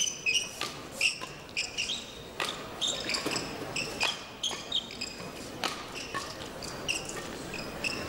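Badminton doubles rally on an indoor court: court shoes squeak and chirp repeatedly on the mat as the players move, and racket strings strike the shuttlecock sharply several times, about a second or more apart.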